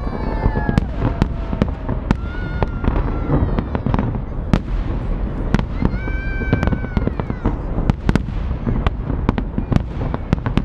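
Festive fireworks salute going off: a dense, continuous run of sharp bangs and crackles, with a few drawn-out pitched tones over them around two seconds in and again past the middle.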